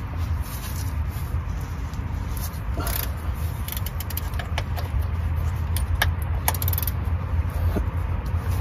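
Scattered sharp metallic clicks and clinks of a ratchet, socket and bolts being worked on a car's transmission mount, over a steady low rumble.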